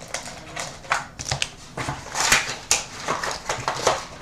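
Hockey card box packaging being torn and crinkled open by hand: a run of irregular rustles and rips, the loudest about two seconds in.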